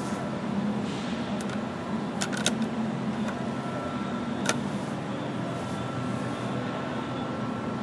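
Rheem 5-ton air-conditioner condensing unit running: a steady hum from the compressor and condenser fan, with a few light clicks between about one and a half and four and a half seconds in.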